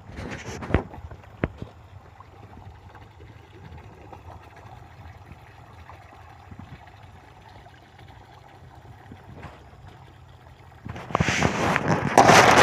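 Striped snakehead fish splashing at the pond surface as they take feed pellets: a few sharp splashes near the start, then a loud, irregular burst of splashing in the last couple of seconds.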